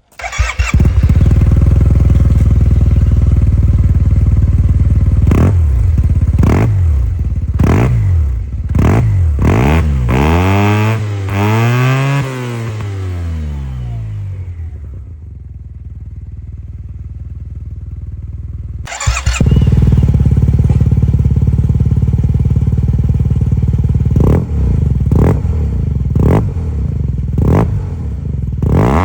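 Yamaha T-Max 530/560 maxi-scooter's parallel-twin engine breathing through aftermarket exhausts: it fires up, idles, and is revved with repeated sharp throttle blips and a few longer rising-and-falling revs. It then settles to a muffled low rumble. About two-thirds of the way in, the sound cuts abruptly to another loud idle with throttle blips, which looks like a change to a different exhaust.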